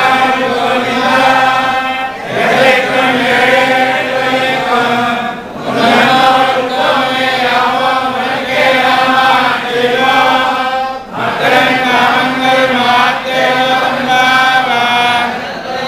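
A group of men chanting in unison, religious recitation on held, wavering notes, broken by short pauses for breath about 2, 5½ and 11 seconds in.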